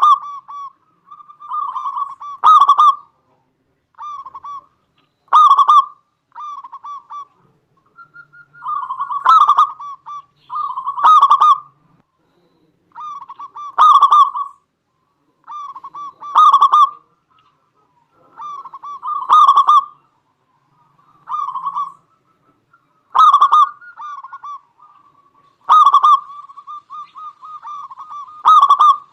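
Zebra dove (perkutut) cooing loudly, a quick stuttering run of notes that peaks in a louder accented coo, repeated about every two and a half to three seconds.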